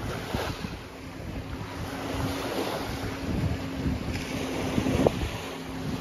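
Small waves lapping and washing onto a sandy shore, with wind buffeting the microphone. A faint steady hum sits in the background from about a second and a half in.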